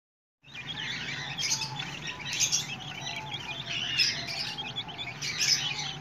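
A flock of young chicken chicks peeping continuously while pecking at feed, many high chirps overlapping, starting about half a second in. A low steady hum sits underneath.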